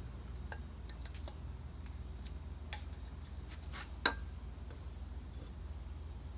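Steady high chirring of crickets over a low background hum, with scattered light clicks and one sharper knock about four seconds in.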